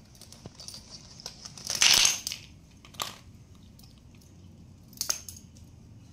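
Yellow cloth bag being handled and emptied, with small plastic bottles and toiletries clattering onto a tiled floor: one loud spill about two seconds in, then a few lighter knocks and rustles.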